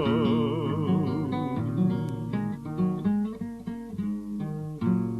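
Music: a plucked acoustic guitar plays an instrumental passage between sung lines of a slow Russian romance. A singer's held note, with vibrato, dies away in the first half second.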